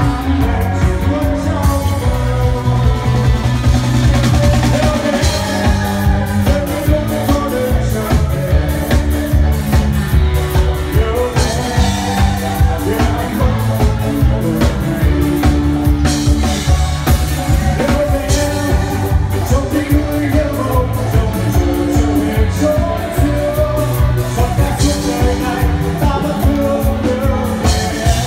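Live band playing a Vietnamese pop song, a male singer singing through the microphone and PA over drums and bass.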